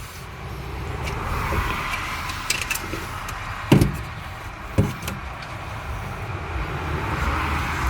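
Two sharp clicks about a second apart, over a steady hiss: the spring clips of a Dodge slant-six distributor cap being snapped loose so the cap can come off.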